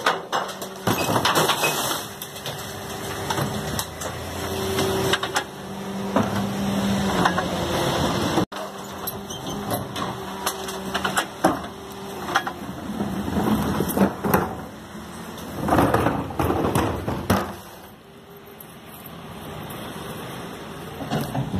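Mercedes-Benz Econic refuse truck with a Geesink GPM III body at work: the engine and hydraulics run with a steady hum while the rear bin lift clanks and bins bang against the hopper. Over the last few seconds the truck sounds quieter and further off.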